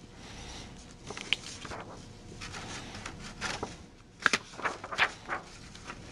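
A hardcover picture book being handled and its pages turned: scattered soft rustles of paper with a few sharper clicks and taps.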